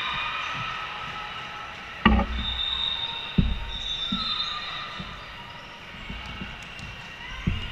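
Two sharp thumps in an echoing gymnasium, about two and three and a half seconds in, among a few softer knocks, with a faint thin high squeal between them.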